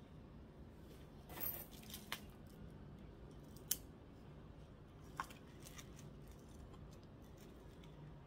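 Quiet handling of a small plant pot and gritty potting mix: a brief rustle, then a few small sharp clicks spread over several seconds, the loudest near the middle.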